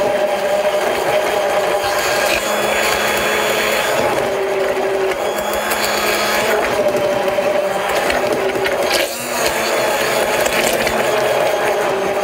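Immersion (stick) blender running in a plastic measuring jug, puréeing a mango-coconut dessert base until it is creamy. The motor's pitch shifts a few times as the blade is moved through the mix, with a brief dip about nine seconds in.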